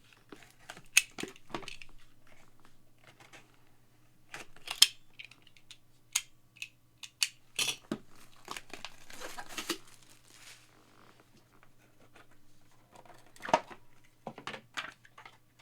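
Crinkling and tearing of packaging with scattered sharp clicks and taps, as a trading-card box is opened and a graded card slab is handled; a faint steady low hum runs underneath.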